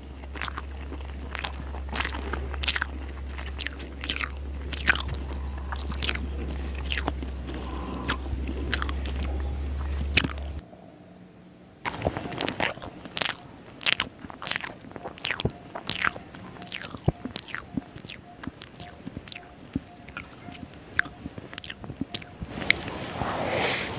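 Close-miked chewing of chicken liver curry and rice: many sharp, wet mouth clicks and smacks. A steady low hum under the chewing cuts off about ten seconds in.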